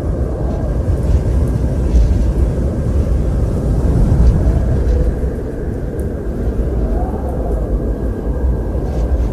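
Eerie gusting wind, a deep steady rush that swells about two to four seconds in, with a faint howl rising and falling about seven seconds in.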